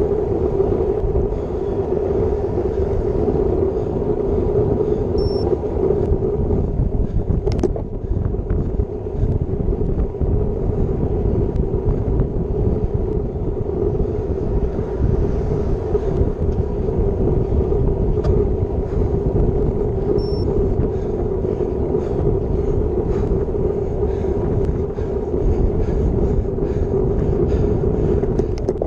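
Steady wind rush buffeting a bike-mounted action camera's microphone, over the rumble of road-bike tyres on asphalt, as the bike rides fast along a highway.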